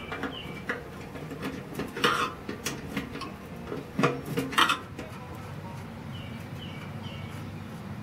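Sharp metallic clinks and taps of a steel combination wrench against the fuel bowl fitting under a gas tank, a handful of separate clicks in two clusters about two seconds apart.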